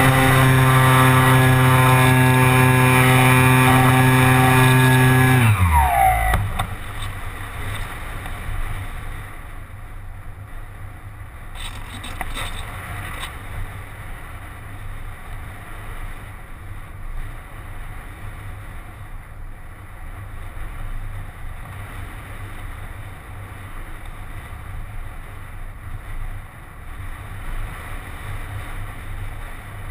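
Electric motor and propeller of a ParkZone Radian RC glider running with a steady whine, then winding down in pitch and stopping about five and a half seconds in. After that, only the rush of air as the glider flies unpowered.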